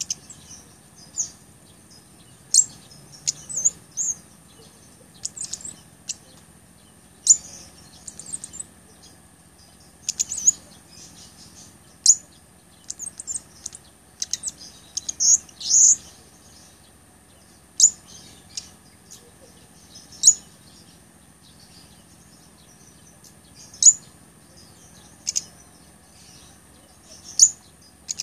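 A caged cabai gunung flowerpecker calling: short, sharp, very high-pitched chips and twitters, some single and some in quick clusters, every second or two.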